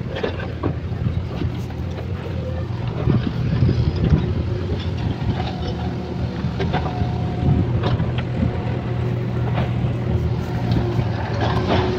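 Diesel engine of a backhoe loader running steadily at work, with scattered clicks and knocks over the low hum.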